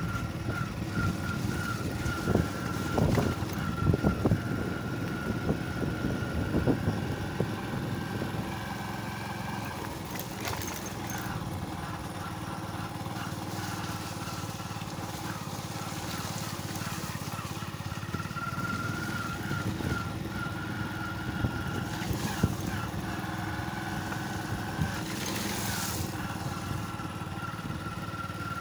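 Vehicle running slowly over a rough gravel and dirt road, with a steady high whine and a low rumble. Knocks and rattles from the bumps are heaviest in the first several seconds.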